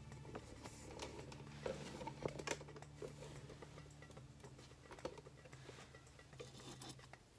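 Faint light clicks and rubbing of metal parts being handled: a tapered roller bearing set into a freshly installed race in a cast brake drum hub, and the drum shifted on the bench, over a steady low hum.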